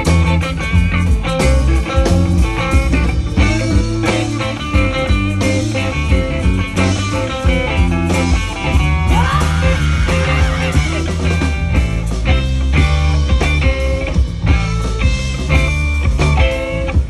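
Live band playing rock with electric guitars over bass guitar, loud and unbroken.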